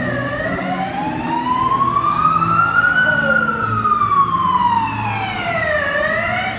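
Emergency vehicle siren on a slow wail: the pitch climbs steadily for about three seconds, falls back over the next three, and starts climbing again near the end.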